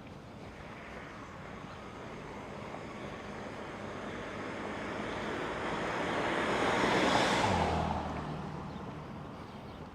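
A car passing on the street. Its noise builds over several seconds, peaks about seven seconds in, then fades, its low hum dropping in pitch as it goes by.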